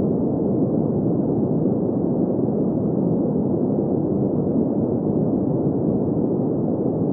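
Steady green noise for sleep: an even, unchanging hiss-like rush centred in the low-middle range, with no high hiss and no events.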